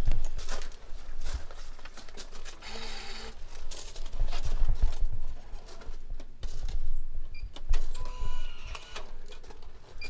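Japanese ticket vending machine being worked by hand: a short mechanical whir about three seconds in, scattered button clicks, and electronic tones near the end as selections are made.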